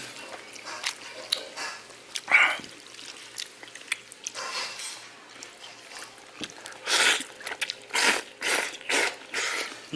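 A person slurping jjamppong noodles out of spicy broth: one loud wet slurp about two seconds in, then several quick slurps in the second half.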